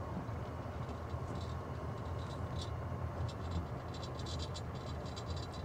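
A 1999 EZ-GO TXT electric golf cart on a 36-volt pack of three 12-volt batteries, driving on pavement: a steady low rumble with fast, irregular light rattling and ticking that picks up about a second in.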